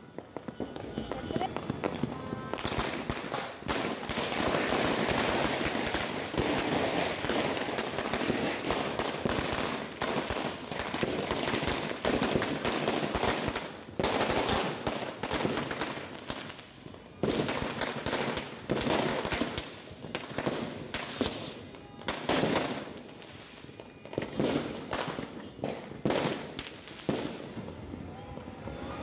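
Firecrackers going off in a dense, continuous crackle of rapid bangs, the loudness rising and falling throughout.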